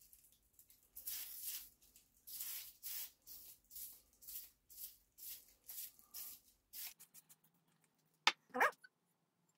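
WD-40 aerosol can sprayed in a quick series of short hissing bursts, about two a second, coating the foil-wrapped barrel as a release agent so the bedding compound won't stick. Near the end, two brief sharp knocks.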